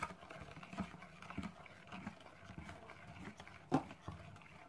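A spoon stirring jello powder into hot water, tapping and scraping against the sides of the cup in faint irregular clinks, with one sharper clink about three and three-quarter seconds in.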